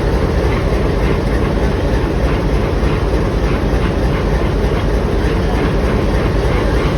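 Train running at close range: a steady, loud rumble and hum with faint regular clicking.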